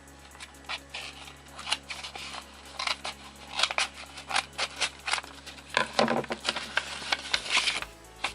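A mailed package being opened by hand: irregular rustling, crinkling and crackling of the packaging, stopping near the end.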